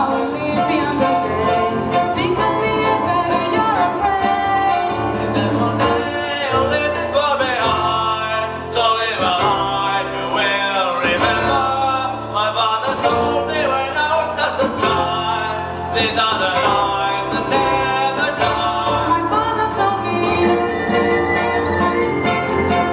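Live band performing a song: several voices singing together over acoustic guitar and mandolin, with bass and drums.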